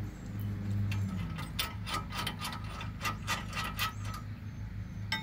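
Steel combination wrench and threaded bolt clinking together as the wrench is brought up and fitted to the nut: a run of light, slightly ringing metallic clicks, a few a second, beginning about a second in.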